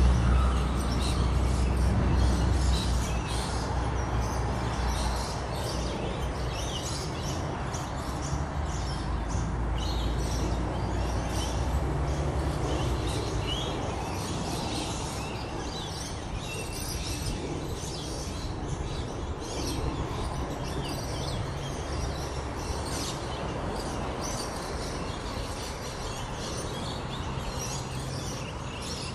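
Birds chirping in many short, high calls throughout, over a low rumble of road traffic that is loudest at the start and eases off after about six seconds.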